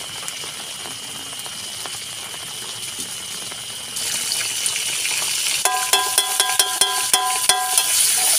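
Food sizzling in a hot pan, the sizzle getting louder about four seconds in. Past the middle a metal spatula stirs and strikes the pan in a quick run of ringing clinks.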